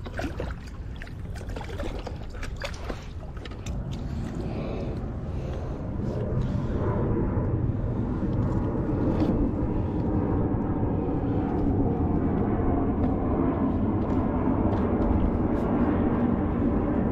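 Water splashing and dripping beside a kayak with light handling clicks for the first few seconds, then a steady low rushing noise that comes up about six seconds in and holds.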